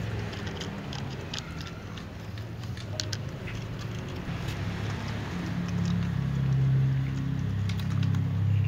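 Cats eating dry kibble from plastic cups: scattered small crunching clicks of chewing and of the cups. Underneath is a steady low hum that grows louder in the second half.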